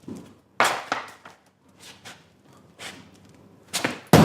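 A series of about eight short knocks and thumps at irregular intervals, the loudest near the end.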